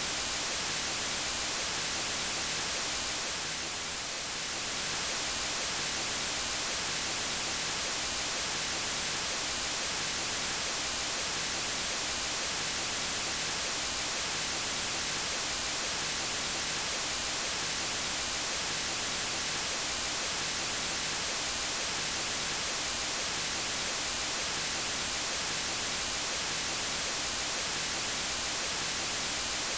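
Steady white noise: an even hiss across all pitches, strongest in the treble, with a brief slight dip in loudness about four seconds in.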